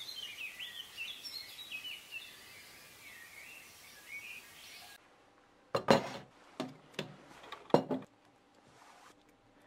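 Small birds chirping over a steady outdoor background. About halfway through this gives way to a few sharp scrapes and clinks of a table knife spreading jam on toast against a plate, the loudest two about two seconds apart.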